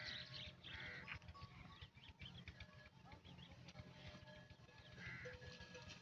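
Faint sound of a grazing herd of water buffalo and cattle in dry stubble, with many small scattered clicks and a few short high calls near the start and again about five seconds in.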